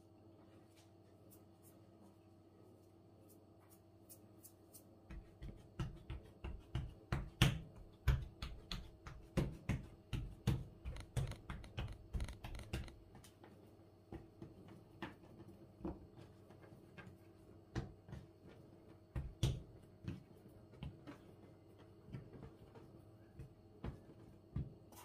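Hands patting and pressing rounds of baklava dough flat on a wooden table: a quick run of dull knocks a few times a second starting about five seconds in, then slower, scattered ones.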